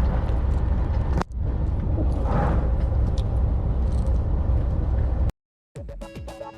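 Steady low rumble of wind and engine noise aboard a fishing boat, briefly broken about a second in. It cuts off suddenly near the end, and after a moment of silence background music starts.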